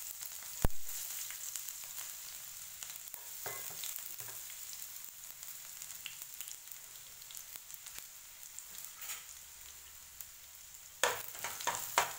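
Finely chopped garlic sizzling steadily in hot oil in a nonstick pan. A single sharp knock comes about a second in, and near the end a spatula scrapes and stirs through the garlic.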